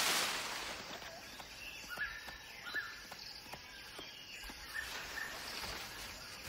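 Forest ambience: short bird chirps every second or so over a steady high hiss, with a few soft clicks.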